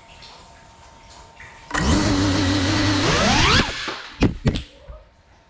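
Cinelog35 cinewhoop FPV drone's brushless motors and propellers, heard from the GoPro on board: they spin up suddenly to a loud steady whine, the pitch climbs sharply about a second and a half later as the throttle is pushed, then the sound drops away. Two sharp knocks follow.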